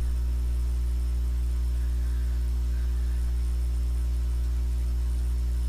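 Steady low electrical mains hum with a buzz in it, over a faint hiss.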